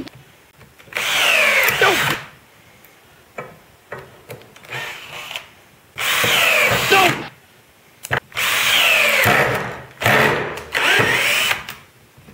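Cordless drill driving drywall screws into hard maple in about five short runs of a second or so, its whine falling in pitch each time as the screw bogs down in the hardwood. These brittle screws are being driven until they twist off.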